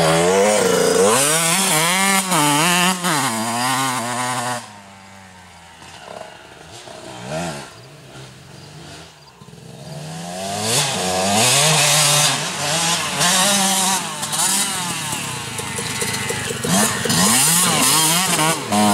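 Dirt bike engines revving hard, the pitch rising and falling with the throttle as the bikes climb and turn in loose sand. About four seconds in the engine sound drops away to a faint, distant drone. It comes back loud about ten seconds in as a second bike revs close by.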